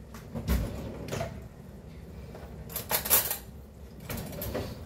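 A few knocks and clatters of kitchen things being handled, like a cupboard or dishes, the loudest about three seconds in.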